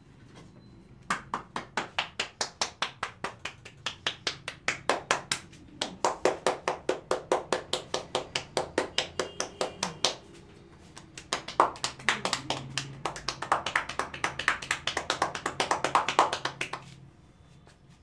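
Rapid tapping and clapping of hands striking a person's head in a percussive head massage, about five strikes a second, in three bursts separated by short pauses.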